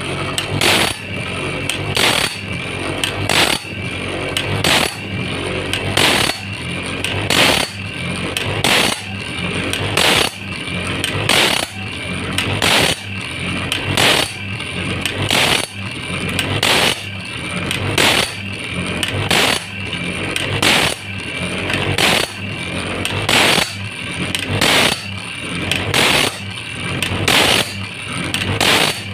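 Homemade automatic saw-sharpening machine running: an electric motor hums steadily while the grinding wheel grinds into a steel saw blade's teeth in a regular cycle about every second and a half, each pass marked by a sharp click as the blade is stepped on to the next tooth.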